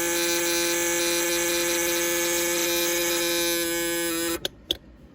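Vintage Bradley alarm clock's alarm buzzing at one steady pitch for about four seconds, then cutting off suddenly, followed by two quick clicks. The alarm is going off only because the time dials were turned by hand, since the clock doesn't advance on its own.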